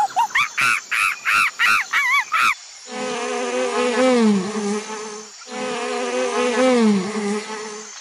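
Wasps buzzing in two long swells of about two and a half seconds each, the pitch dipping near the end of each swell. Before them, in the first two and a half seconds, comes a quick run of short, high, arching animal calls, about three a second.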